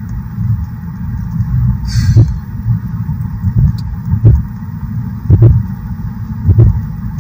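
Car driving at highway speed, heard from inside the cabin: a steady low road rumble with low thumps recurring roughly every second. There is a brief hiss about two seconds in.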